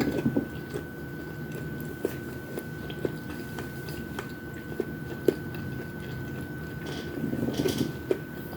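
Close-miked mukbang eating sounds of fried chicken wings and rice: wet chewing with scattered small clicks of the mouth, and a busier spell of biting and chewing at the start and again about seven seconds in.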